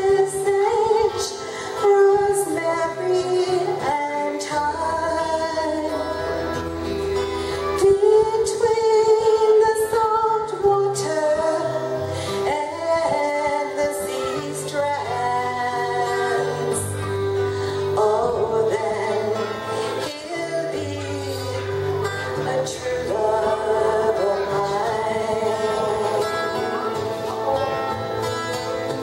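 A woman singing live into a microphone while accompanying herself on acoustic guitar.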